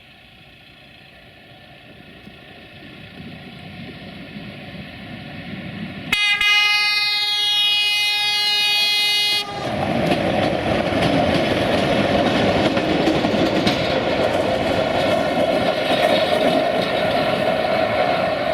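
CFR infrastructure draisine (DC 061 rail truck) approaching, growing steadily louder, then sounding its horn, one multi-tone blast of about three seconds starting about six seconds in. It then passes close by with loud engine and wheel-on-rail noise.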